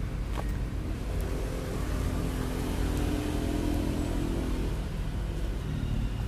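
A motor vehicle passing, heard as a steady low rumble with an engine hum that swells about a second in and fades out before the end.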